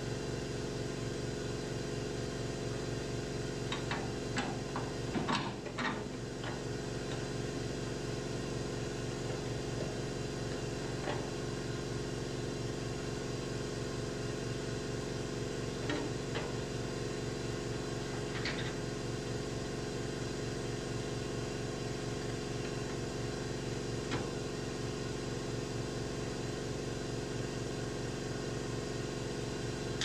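Light metallic clinks and taps of a hand wrench on the brake pedal bracket bolts, a cluster about four to six seconds in and single ones later, over a steady mechanical hum.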